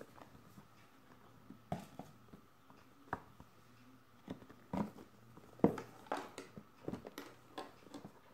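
Cardboard product box handled by hand on a tabletop: irregular light taps, knocks and brief scrapes of fingers and packaging. The loudest knock comes a little past halfway.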